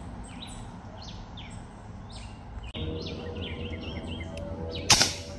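A chorus of short, high chirps repeating over steady background noise. Part way through, a low steady hum joins in, and near the end there is a single loud, sharp burst.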